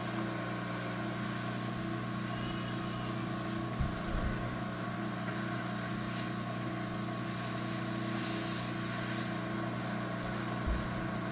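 Hot air rework station's blower running with a steady hum while it heats the solder of a laptop DC jack to desolder it. A light knock about four seconds in.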